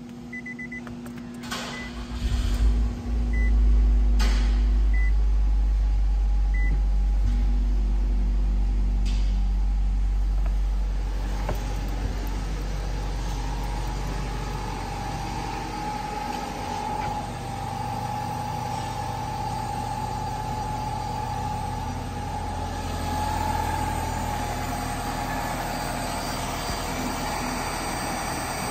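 2013 Nissan Altima's 2.5-litre four-cylinder engine starting about two seconds in and then idling steadily. A door-open warning chime beeps a few times at the start.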